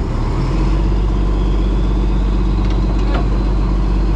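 Fishing boat's engine running steadily with a low hum, a couple of faint clicks over it near the end.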